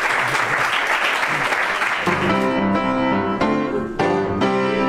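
Audience applause that cuts off abruptly about two seconds in, replaced by instrumental music with plucked, chord-like notes.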